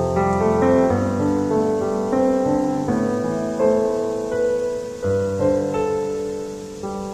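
Slow piano music: chords and melody notes over deep bass notes, with the bass changing about a second in and again about five seconds in.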